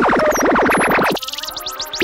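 Cartoon electronic short-circuit sound effect for a sparking robot: a fast string of rising synthesizer chirps, about a dozen a second, that cuts off suddenly a little over a second in, followed by a quieter electric crackle.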